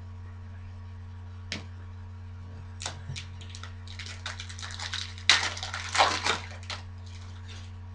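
Trading card pack being handled and opened: rapid crinkling and clicking of the wrapper and cards that builds to a loud crackle about five to six seconds in, over a steady low electrical hum.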